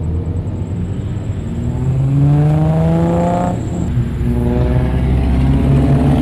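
Car engine accelerating hard, its note climbing steadily, dropping suddenly about three and a half seconds in, then climbing again.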